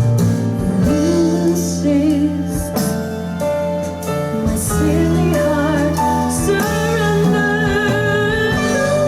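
Bowers & Wilkins 805 D4 bookshelf loudspeakers playing a slow song: a singer holds long, wavering notes over sustained keyboard chords and bass.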